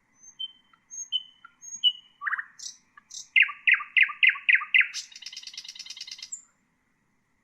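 Nightingale singing one song phrase. It opens with a few soft, paired whistled notes, then a run of about six loud repeated notes, then a fast rattling trill that stops near the end.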